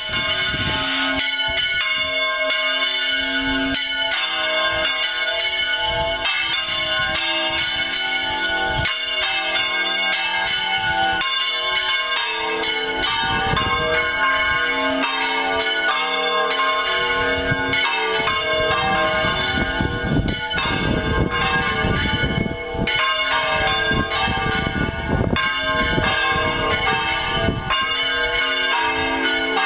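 Church bells of Lluc Monastery ringing continuously, several bells overlapping in a dense peal, rung at eleven o'clock.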